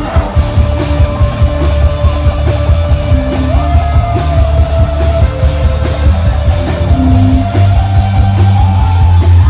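Live rock band playing loud: electric guitars, bass guitar and drum kit, with a heavy, booming low end and long held guitar notes over steady drum hits.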